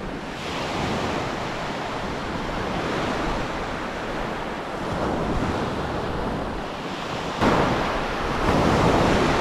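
Small waves breaking and washing up a sandy shore, with wind buffeting the microphone; the surf swells and fades, with a sudden louder surge about seven and a half seconds in.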